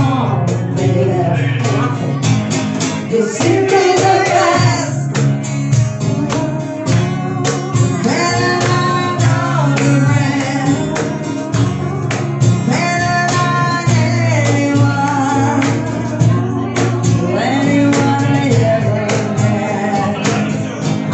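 Live acoustic band: two women singing together over acoustic guitar, upright double bass and a cajón keeping a steady beat.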